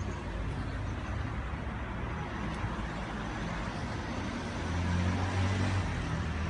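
Road traffic: a steady hum of passing vehicles, swelling about five seconds in as one goes by.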